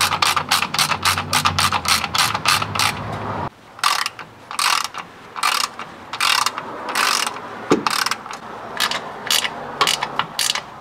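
Hand ratchet spanner clicking as bolts under the car are turned out. There is a fast run of clicks for the first few seconds, then short bursts of clicks at a steady pace.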